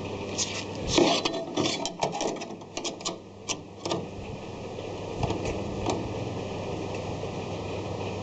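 Irregular sharp metallic clicks and knocks of a steel car body panel being bent and shaped with pliers in a vise, over a steady low hum. The clicks stop about six seconds in.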